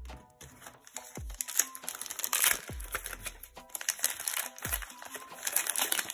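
An Upper Deck hockey card pack's wrapper crinkling and tearing as it is opened by hand, starting about a second and a half in. Background music with repeating bass notes plays throughout.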